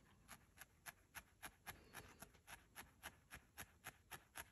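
Felting needle stabbing repeatedly into wool, faint and regular clicks nearly four a second, needling a rolled wool nose onto a felted body.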